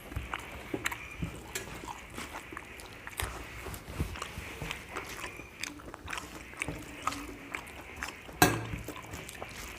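Close-up eating sounds: wet clicks and smacks of chewing fish and rice and of fingers mixing rice with curry, with a louder knock about eight and a half seconds in.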